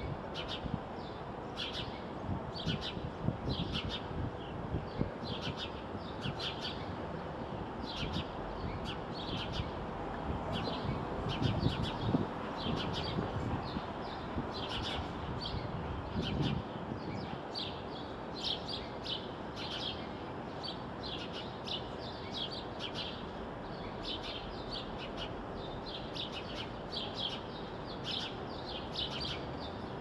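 House sparrows chirping: short, rapid chirps repeated several times a second, over steady low background noise, with a brief low rumble near the middle.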